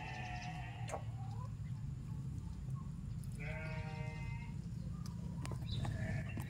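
A goat bleating: three wavering calls, each about a second long and some three seconds apart, over a steady low hum.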